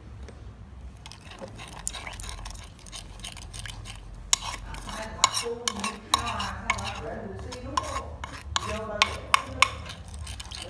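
Metal spoon stirring a thin chili-garlic sauce in a wooden mortar, sloshing the liquid and scraping and clicking against the wooden bowl. The clicks and knocks come thicker from about halfway in, with a few sharp taps near the end.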